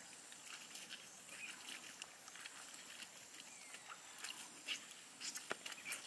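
Faint outdoor background with scattered small clicks and knocks, a few sharper ones near the end.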